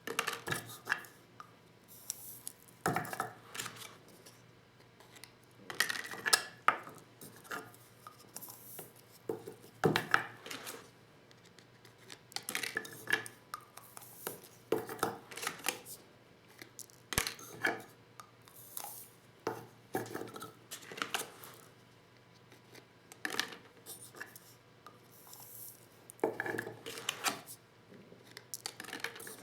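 Clicks, knocks and metal-and-plastic clatter from hand-reloading 12-gauge shotgun shells with a Lee Loader set: shells, dies and components handled and tapped in irregular clusters every second or two, a few knocks sharper than the rest.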